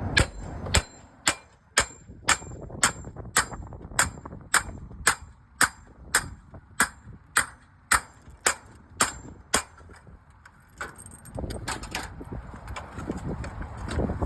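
Hammer blows at a steady two or so a second, about eighteen sharp metallic strikes with a short ring, stopping about ten seconds in.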